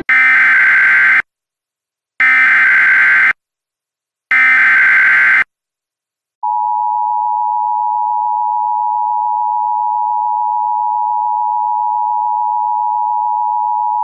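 Emergency Alert System tones for a severe thunderstorm warning. First come three SAME digital header bursts, each about a second long with about a second of silence between them. Then the two-tone attention signal starts about six seconds in and holds as a steady note.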